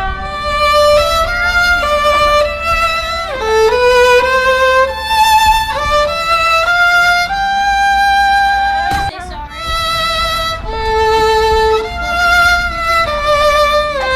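Music: a slow violin melody of held notes with vibrato, moving from note to note. There is one sharp click about nine seconds in.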